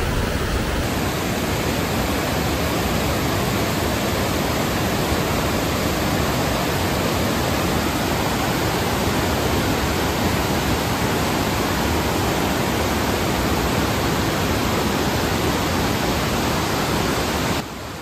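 Water pouring over Vazhachal Falls: a steady, dense rush of falling water with no let-up, cut off abruptly just before the end.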